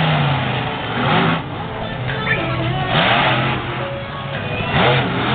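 Monster truck engine revving hard in repeated throttle surges as the truck drives and jumps over crushed cars, with music playing over the arena loudspeakers.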